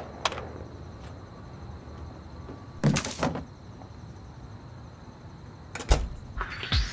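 Heavy metal back door opening about three seconds in, then banging shut with a deep thud a little before six seconds.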